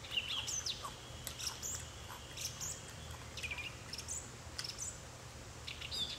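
Short high chirps, scattered through, like small birds calling, over a low steady hum, with soft chewing of a mouthful of guacamole.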